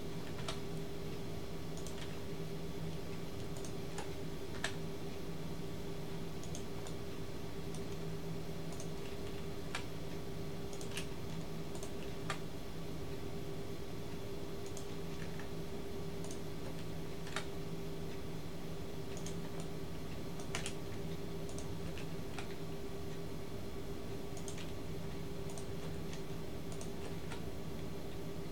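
Scattered, irregular clicks of computer keys and a mouse as a 3D model is edited, over a steady low hum.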